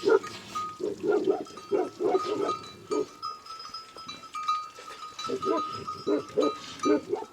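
A flock of sheep bleating, many short calls following one another several times a second.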